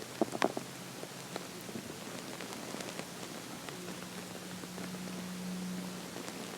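Hungry empty stomach growling: a few quick gurgling pops in the first second, then a low steady growl from about four seconds in, lasting about two seconds, over a faint hiss.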